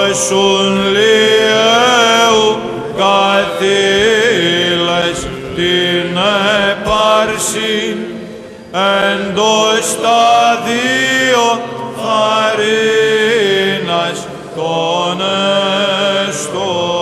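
Greek Orthodox Byzantine chant: a sung melodic line with long ornamented notes over a held low drone, in long phrases with brief breaks about eight and fourteen seconds in.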